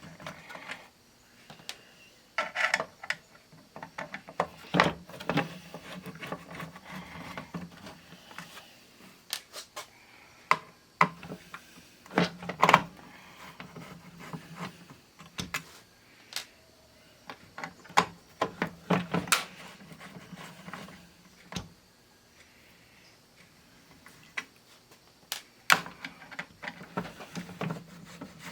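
Irregular clicks, taps and knocks of hand tools and parts being handled while a vintage 8-track player's drive and deck are taken apart, with a few louder knocks about halfway through.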